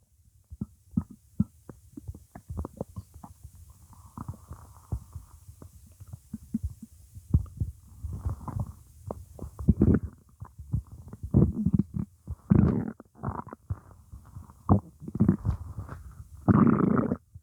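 Stomach growling and gurgling: a run of short gurgles and pops with several longer low growls, the longest and loudest near the end.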